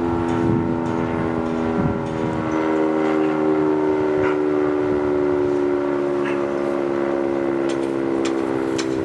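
Sentry 10V outdoor warning siren sounding loudly on its attack test, its chord holding at a steady pitch rather than rising and falling. Wind rumbles on the microphone, strongest in the first couple of seconds.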